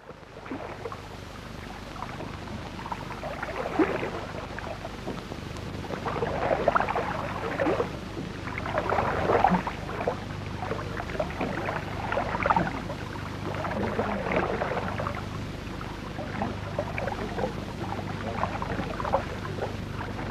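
Lake water lapping and splashing in irregular surges every second or two, over a steady low hum from an old film soundtrack.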